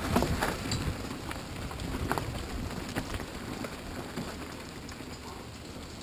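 Mountain bike rolling down a dirt trail: tyres crunching over loose dirt and small stones, with scattered clicks and rattles from the bike, growing quieter as it goes.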